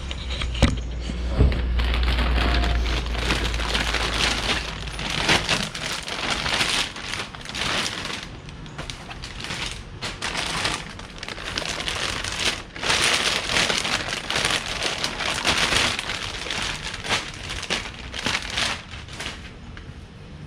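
Packaging being torn open and unwrapped by hand, with irregular crinkling, rustling and crackling throughout.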